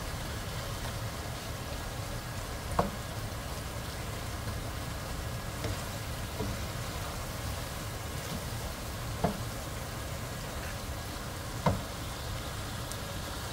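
Diced turnips sizzling steadily as they fry in oil in a nonstick frying pan, the cooking water nearly cooked off and the turnips now at the frying (bhuna) stage, stirred with a spatula. Three sharp knocks of the spatula against the pan, about 3, 9 and 12 seconds in, the last the loudest.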